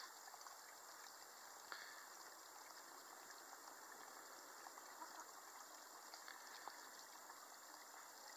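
Faint, steady trickle of a small shallow stream, with one soft click a little under two seconds in.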